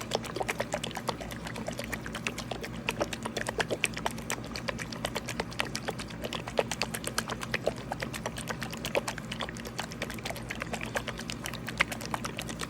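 Plastic nitrate test-kit reagent bottle being shaken hard, its liquid sloshing and knocking in quick, uneven clicks, several a second. The reagent is being shaken for a full minute so the test gives an accurate reading.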